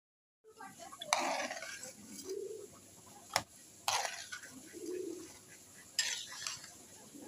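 A metal spatula stirring a thick rice and fish-head curry in a pot: a few short scrapes against the pan and one sharp knock about three and a half seconds in. Low cooing calls repeat in the background about every two and a half seconds.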